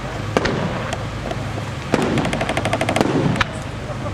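St. Mary Fireworks aerial fireworks shells going off with sharp single bangs. About two seconds in comes a rapid run of small bangs, roughly ten a second, for just over a second.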